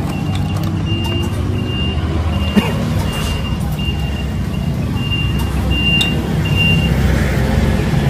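A vehicle engine runs steadily while a reversing alarm beeps about twice a second; the beeping stops about seven seconds in. A single sharp knock sounds about two and a half seconds in.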